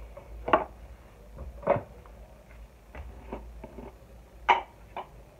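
Kitchen containers being handled: a string of separate knocks and clatters, the loudest about half a second in, just before two seconds and about four and a half seconds in, as a plastic tub's lid is taken off.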